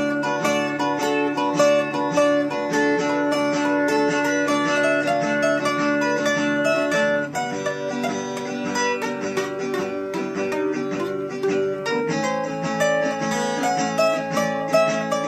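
Acoustic guitar playing an instrumental picked passage, with no singing, changing chords about seven seconds in and again about twelve seconds in.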